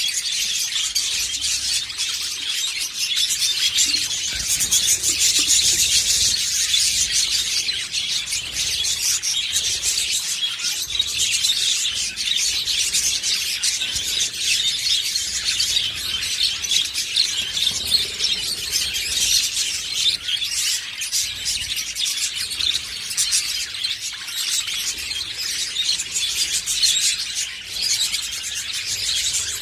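Budgerigars chattering and chirping without a break, a dense stream of high twittering calls.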